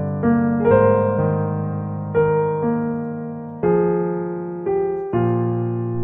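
Background piano music: single notes and chords at an unhurried pace, each struck and left to fade before the next.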